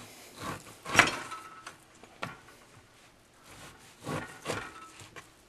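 Henckels chef's knife slicing through raw beef and knocking on the cutting board in a series of irregular strokes, the loudest about a second in.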